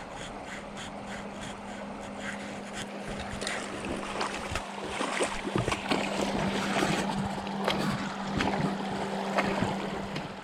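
Shallow river rushing over rocks. Over it come light ticks about twice a second, then from about four seconds in louder, irregular clicks and splashes.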